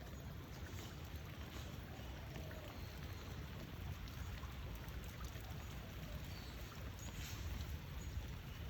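Steady rain falling, with a low rumble of wind on the microphone.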